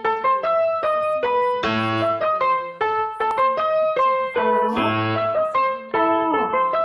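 Background music: a keyboard melody of single clear notes, played in a steady rhythm over a low bass note that comes about every three seconds.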